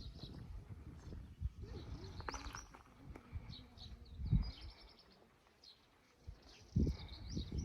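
Small birds chirping in short, high calls, over low thuds and rumbling; the loudest thuds come about four and seven seconds in.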